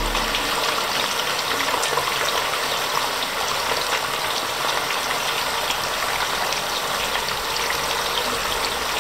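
Potato sticks deep-frying in olive oil over high heat: a steady, dense sizzle with fine crackling.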